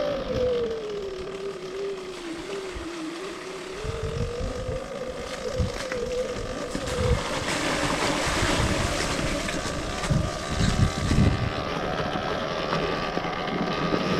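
Electric enduro motorcycle's motor whining while riding, its pitch falling over the first few seconds, then rising again and holding steady as speed changes. Wind buffets the microphone with low rumbling gusts in the middle stretch.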